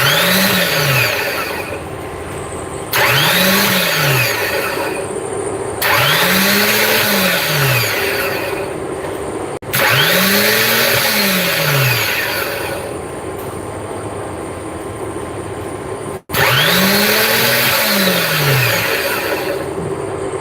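Truck starter motor energised five times in a row, each time whirring up in pitch and then winding back down over about a second and a half.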